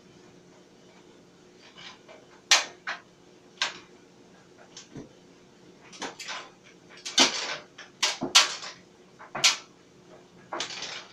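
Faint steady hum of a running clothes dryer, broken by a dozen or so irregular sharp knocks and clatters, bunched most thickly in the middle.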